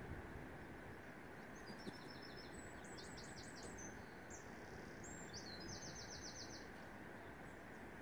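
A small songbird sings one phrase of rapid, high-pitched trills and short notes, lasting about five seconds, over a steady background hiss.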